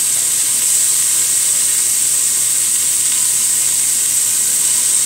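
Pieces of boneless, skinless chicken breast sizzling steadily as they brown in a hot frying pan.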